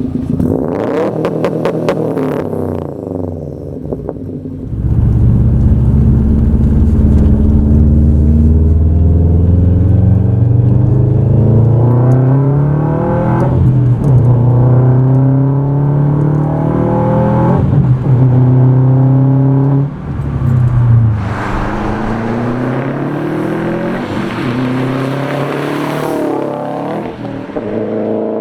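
Subaru WRX's turbocharged flat-four through an SRS muffler-delete catback exhaust, accelerating hard. The engine note rises and drops back at each gear change, with a few sharp cracks near the start.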